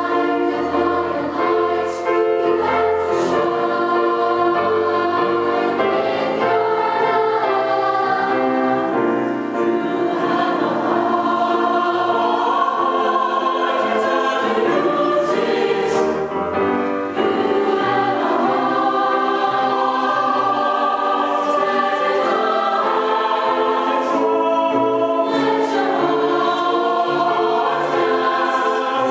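A youth and children's choir singing together, many voices in continuous sung phrases.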